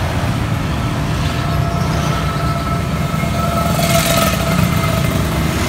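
A motorcycle passing on the road, its engine note swelling to a peak about four seconds in, over a steady low traffic rumble.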